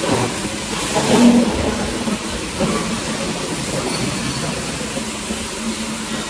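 Factory-floor machinery noise from a robotic welding line: a steady hiss and rumble, with a louder clatter about a second in.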